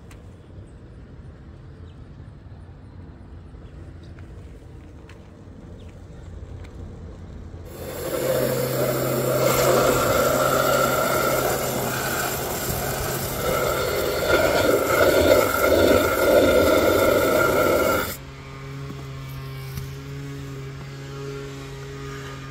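Garden hose spray nozzle jetting water into a plastic bucket of car-wash soap, churning up suds. The loud rushing spray starts about a third of the way in and cuts off abruptly some ten seconds later, leaving a steady low hum.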